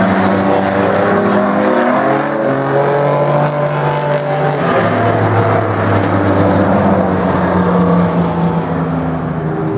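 Several V6 modified race cars lapping an oval track, their engines running together and passing by, the overlapping engine notes shifting in pitch as they accelerate and ease off.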